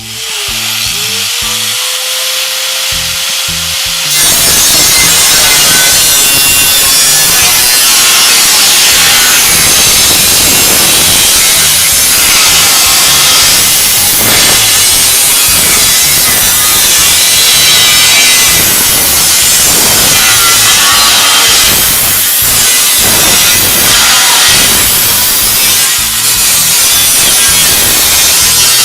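A power cutting tool spins up with a rising whine, then from about four seconds in cuts through a sheet-steel replacement floor panel with a loud, continuous harsh noise.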